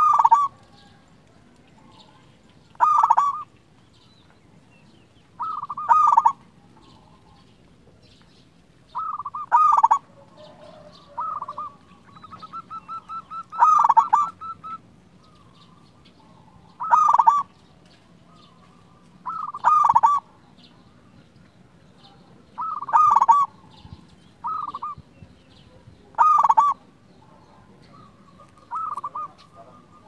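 Zebra dove (perkutut) cooing: a short phrase of cooing notes about every three seconds, with a faster run of short rapid notes near the middle.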